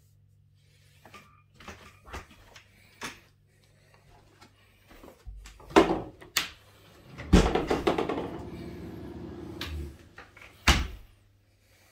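Interior doors being opened and shut: light clicks and knocks from handles and latches, then sharper bangs about six seconds in and again near the end. Between them there are a couple of seconds of rushing noise.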